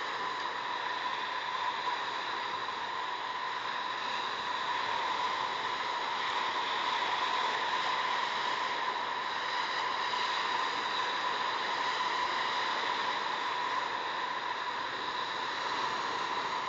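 Steady hiss with a thin, steady whine running through it and a slight swell in loudness partway through.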